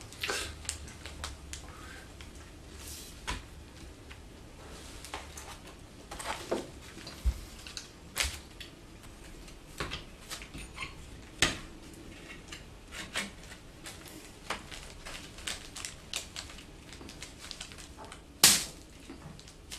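Scattered light clicks and knocks of wood and metal as a matchlock gun is handled, irregularly spaced, with one louder knock near the end.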